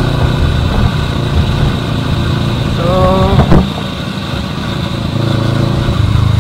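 Kawasaki Versys 650's parallel-twin engine running steadily at low road speed, with a constant rush of noise over it. A brief pitched, voice-like sound about three seconds in.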